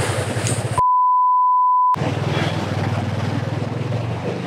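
A motorcycle engine running under way with road and wind noise. About a second in, all sound is replaced for about a second by a steady, high edited-in censor bleep, then the engine is heard again.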